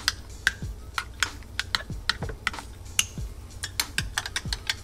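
A metal teaspoon stirring sugar into coffee, clicking against the inside of a ceramic mug and, near the end, a glass espresso cup, about four clinks a second.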